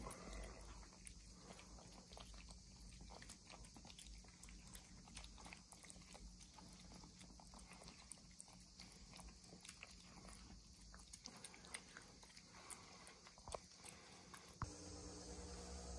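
Kittens eating wet cat food from a bowl: faint, irregular chewing and smacking clicks. Near the end a steady hum comes in.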